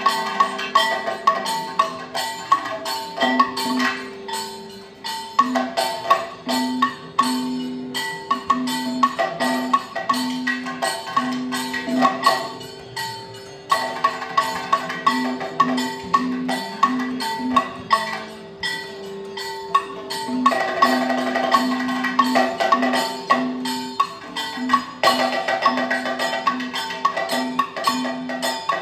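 Kathakali percussion accompaniment: chenda and maddalam drums playing fast, dense strokes together with ringing metal strikes, over a held drone.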